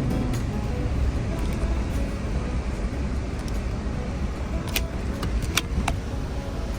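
Vehicle driving along the beach sand: a steady low rumble of engine and tyres, with a few sharp clicks or rattles in the second half.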